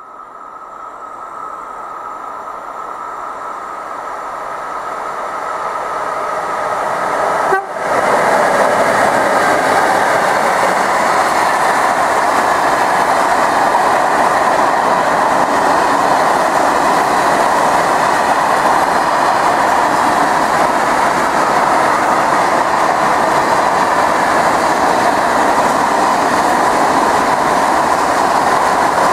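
Freight train approaching with a steady horn-like tone at the start, its noise growing steadily louder. It then passes close by as a loud, even rolling clatter of the wheels of a long rake of loaded covered hopper wagons on the rails.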